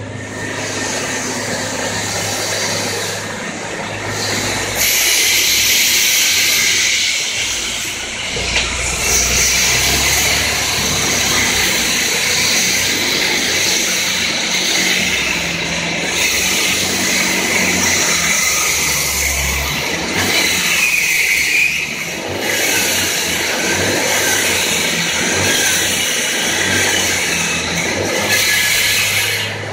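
Walk-behind concrete saw running and cutting into the street pavement, a steady high whine over its engine, with city traffic passing close by and a heavy vehicle's low rumble through the middle stretch.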